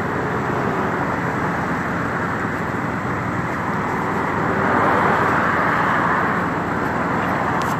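Car-transporter truck's engine running steadily, a continuous low rumble that swells slightly about five seconds in, with a single sharp click near the end.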